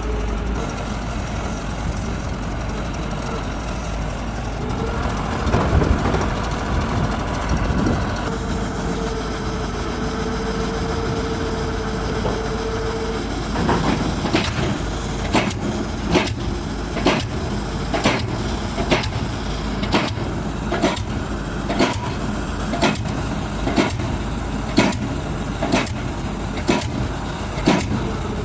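Diesel engine of a crawler-tractor pile rig running steadily, with a whine for several seconds in the first half. From about halfway on, an SP-49 diesel pile hammer strikes about once a second, driving a square reinforced-concrete pile.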